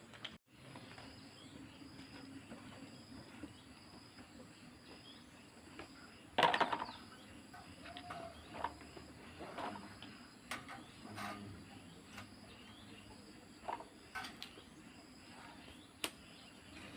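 Scattered light clicks and knocks, the loudest about six and a half seconds in, over a steady background of insects chirring.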